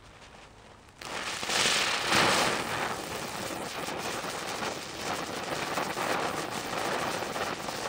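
Keller Alienfire silver ground spinner catching about a second in, then hissing and crackling rapidly as it throws out sparks. It is loudest just after it catches.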